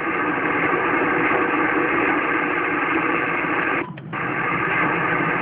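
Steady hiss of band noise from a Kenwood TS-850S HF transceiver's receiver on the 20-meter band, a band the operator calls pretty nice and relatively quieter. The audio drops out briefly just before four seconds in as the receiver changes band to 17 meters, then the same hiss returns.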